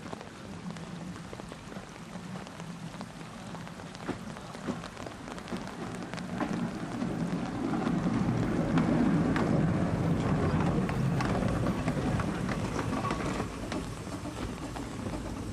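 Small 19-inch-gauge 0-4-0 tank steam locomotive running past with its carriage. It gets louder as it nears, is loudest about eight to eleven seconds in, then fades as it draws away, over a steady patter of rain.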